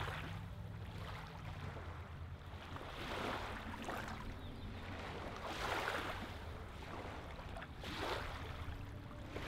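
Small lake ripples lapping onto a pebbly sand shoreline, a soft wash swelling and falling back about every two to three seconds, over a faint low steady rumble.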